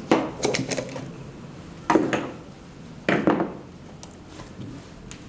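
Hard objects knocked and set down on a work surface during the repair of a heat press: a quick cluster of clattering knocks at the start, then two more single clatters about two and three seconds in.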